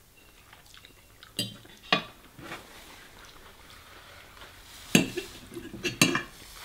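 Forks clinking and scraping on dinner plates as people eat spaghetti: a few sharp clinks about a second and a half and two seconds in, then a busier cluster of clinks near the end.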